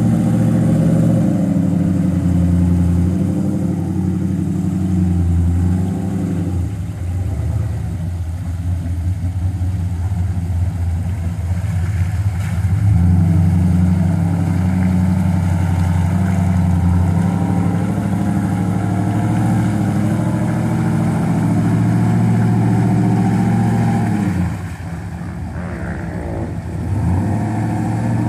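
Off-road buggy's engine running under load as it works over a small rock ledge, the engine note holding steady and then easing off for a few seconds twice, about 7 seconds in and again near the end.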